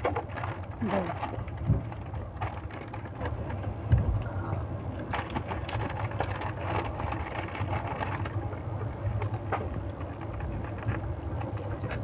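Passenger train running, heard from inside the carriage: a steady low rumble with frequent rattles and knocks, the loudest about two and four seconds in.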